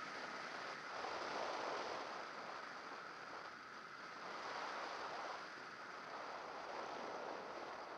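Wind noise of air rushing past a camera on a radio-controlled model plane flying low on its landing approach: a steady hiss that swells and eases slowly, with no clear motor tone.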